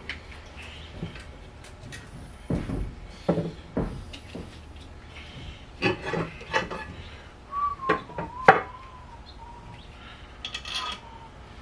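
Scattered knocks, taps and clinks of metal parts and hand tools being handled around a car's engine bay and workbench, with a faint wavering whistle-like tone around eight seconds in.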